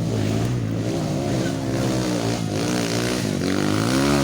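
Motorcycle engine running, its pitch rising and falling as the throttle opens and closes.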